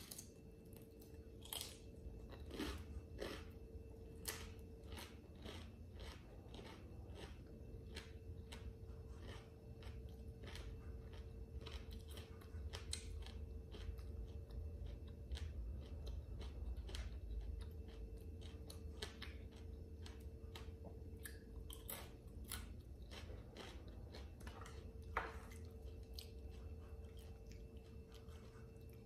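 Close, crisp chewing and crunching of a sesame rice cracker (bánh tráng) eaten with a crunchy lotus-stem salad: many sharp, irregular crunches, with a faint steady hum underneath.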